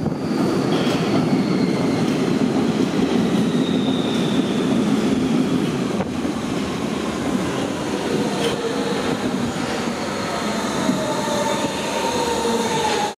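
Hamburg U-Bahn train pulling into an underground station and running past close by: a loud, steady rail rumble with whining tones that slowly fall in pitch as it slows. The sound cuts off suddenly at the end.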